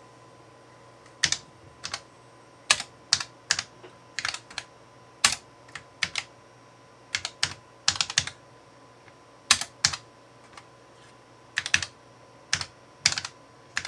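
Typing on a Tandy TRS-80 Color Computer 2 keyboard: sharp key clicks, some single and some in quick runs, at an uneven pace with short pauses between.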